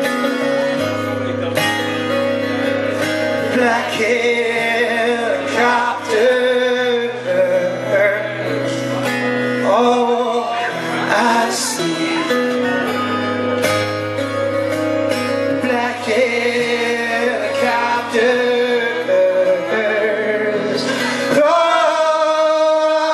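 Live twelve-string acoustic guitar being strummed, with a male voice singing over it. The low bass notes drop out near the end.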